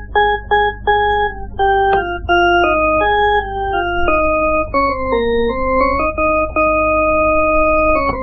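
Music: a slow melody on an organ-like keyboard, one held note at a time, with a steady low hum underneath.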